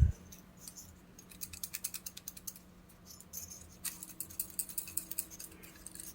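A dull thump, then a run of light clicks and rattles from something loose inside an Ampeg SVT bass amplifier's chassis. Nothing is supposed to rattle in there, so it is a sign of a loose part or debris inside the burned amp.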